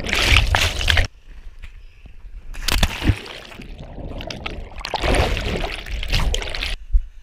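Muddy water splashing and sloshing right against a body-worn action camera as a person moves through a water obstacle, with the camera dipping into the water. The splashing is loud at first and drops away suddenly about a second in. It comes back briefly, then grows loud again and cuts off suddenly near the end.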